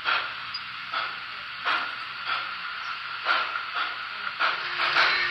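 Paragon4 sound system of a Broadway Limited N scale Reading T-1 steam locomotive playing slow, uneven steam chuffs through its tiny speaker, over a faint low hum. A steady tone joins about four and a half seconds in.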